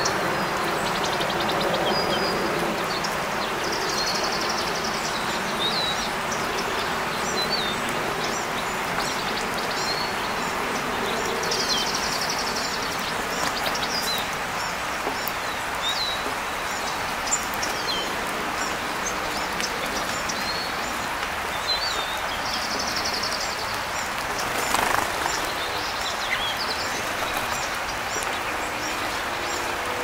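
Small wild songbirds chirping and calling: many short, high chirps, with three brief buzzy trills spread through, over a steady outdoor background hiss. A single short noise burst stands out near the end.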